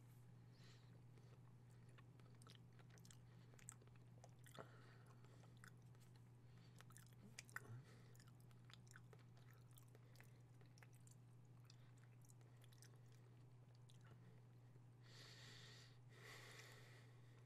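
Faint chewing of a hazelnut chocolate truffle: soft scattered mouth clicks and smacks over a steady low hum, with a couple of breaths near the end.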